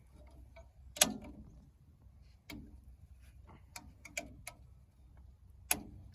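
Hand tools clicking and clinking against drum brake hardware as springs and parts are pried off, in about six separate sharp knocks with the loudest about a second in and another strong one near the end.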